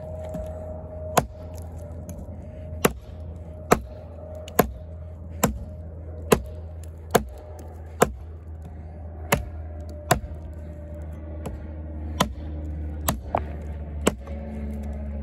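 Kobalt 14-inch camp axe chopping into a log: a steady run of about fifteen sharp blows, roughly one a second, each a short chunk of the steel bit biting into wood.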